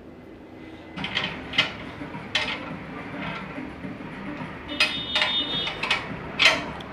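Hand tools clinking and knocking against the steel parts of a clutch pressure plate assembly, starting about a second in. There are several sharp metal clinks, and one rings briefly about five seconds in.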